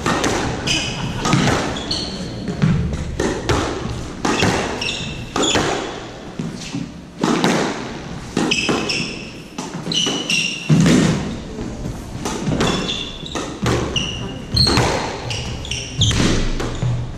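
Squash rally: the ball is struck by rackets and smacks off the walls in a quick, irregular run of sharp knocks, with court shoes squeaking on the wooden floor between shots.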